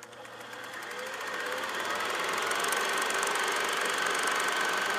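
Film projector running: a steady, rapid mechanical clatter that fades in over about the first two seconds, used as a cinema-intro sound effect.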